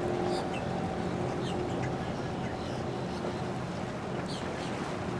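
Motorboat engines running steadily as the boat cruises at low speed, a constant low hum over water and wind noise.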